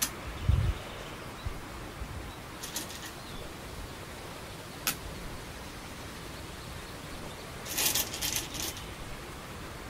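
Go stones clicked down one at a time on a wooden Go board, sharp single clicks a few seconds apart, with a low thud about half a second in. Near the end comes a quick cluster of clicks and rattling stones.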